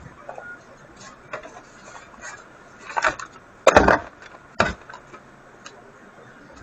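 A run of scattered knocks and clatters from objects being handled, the loudest a heavy knock a little past the middle, with smaller ones just before and after it.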